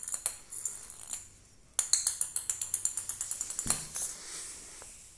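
A small plastic toy ball rattling with quick jingly clicks as a cat bats it across a tiled floor. The rattling pauses briefly about a second in, resumes, and dies away near the end as the ball rolls off.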